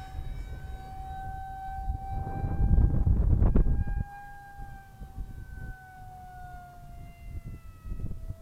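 Steady high whine of an electric radio-controlled model jet in flight, its pitch sliding slowly lower as it flies. Low wind rumble on the microphone runs under it and is loudest around three to four seconds in.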